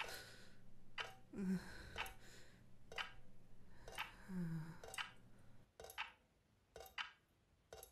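A clock ticking about once a second in a quiet room, with a short, low voice sound falling in pitch twice between the ticks.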